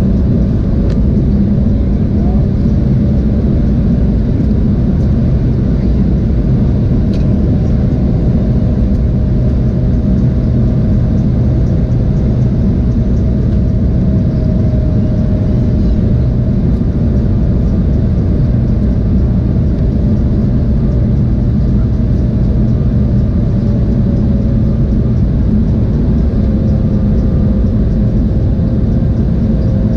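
Embraer E175 airliner cabin noise during descent: a steady rush of airflow and the drone of its General Electric CF34 turbofan engines, with a faint engine tone that drifts slowly in pitch.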